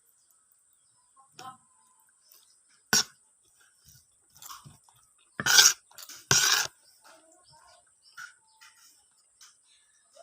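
Close-miked eating sounds: chewing a mouthful of white rice with baby bamboo shoots, with soft mouth clicks throughout and three louder short bursts, the loudest just past halfway.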